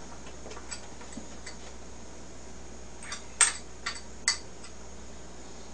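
Tableware clicking and clinking: a few faint clicks, then a cluster of sharper clinks a little past halfway, the two loudest about a second apart.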